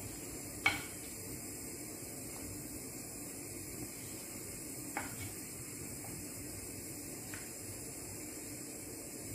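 Wooden spoon stirring chicken and vegetables in a creamy sauce in a nonstick frying pan, knocking sharply against the pan three times, the first, about a second in, the loudest. A steady faint hiss lies underneath.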